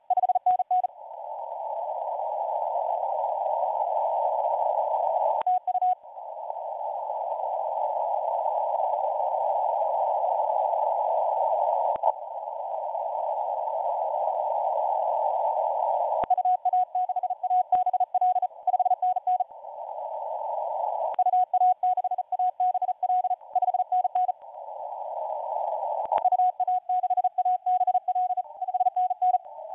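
Morse code (CW) on a 20-metre amateur radio receiver: bursts of a keyed tone, mostly in the second half, with long stretches of hiss in the receiver's narrow filter between them that gradually swell louder.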